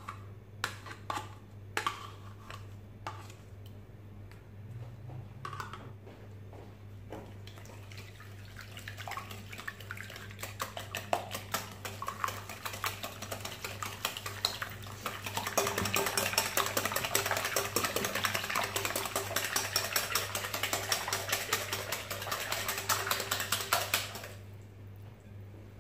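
A fork beating eggs, sugar, oil, melted butter and yogurt in a glass bowl. A few scattered clinks come first, then fast, continuous tapping of metal on glass that builds up about halfway through and stops abruptly shortly before the end.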